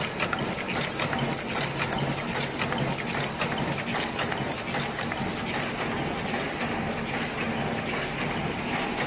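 Automatic paper cup forming machine running: a steady, dense mechanical clatter of rapid clicks and knocks over a low hum.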